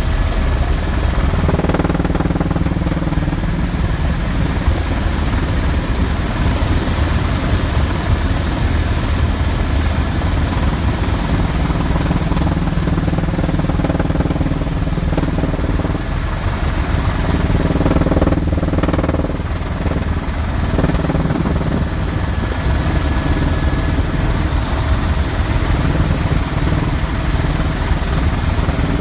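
Eurocopter AS350 B2 A-Star helicopter in flight, heard from inside its cabin: the steady, loud drone of its rotor and single turboshaft engine, with its pitch briefly shifting about two-thirds of the way through.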